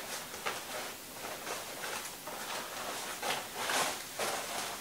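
Crinkling and rustling of a Tyvek respirator hood as it is pulled on and adjusted by hand: irregular short swishes, with a longer stretch of rustling about three seconds in.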